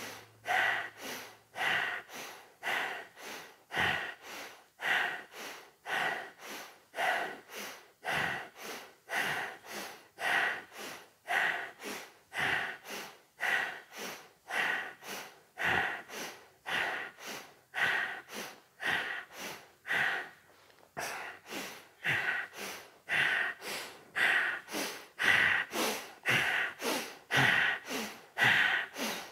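Forceful rhythmic breathing, about two strong breaths a second, with a brief pause about two-thirds of the way through.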